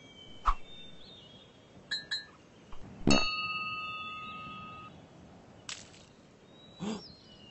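A few sharp clinks and knocks. The loudest, about three seconds in, leaves a ringing tone that fades away over about two seconds.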